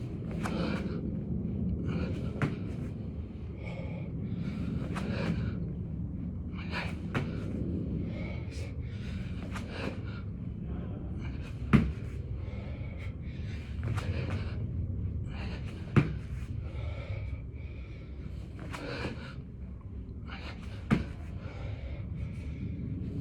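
Heavy, hard breathing from a man exercising, one breath every second or two. Three sharp knocks stand out, about four or five seconds apart.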